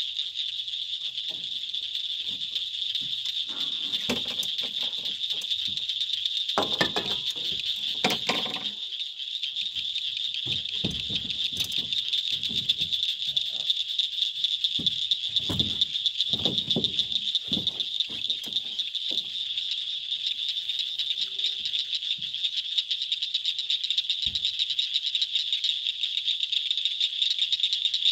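A steady, high-pitched, pulsing chorus of calling insects. Over it, scattered wooden knocks and rustles from handling a canoe tied at a wooden dock, mostly in the first two-thirds.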